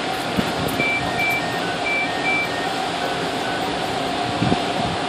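Steady vehicle and air-conditioning hum with a short electronic chime: high beeps stepping down in pitch, played twice in quick succession about a second in, then a few lower beeps.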